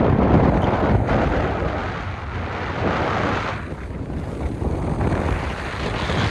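Wind buffeting the phone's microphone, held up through the open sunroof of a moving car: a loud, uneven rushing that swells and dips, with the car's road noise underneath.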